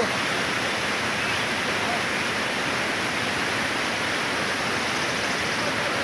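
Small mountain waterfall cascading over rocks: a steady rushing of water.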